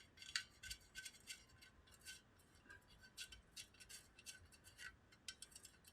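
Quiet, irregular light metallic clicks and ticks of small screws being hand-tightened into an AR handguard's torque plate.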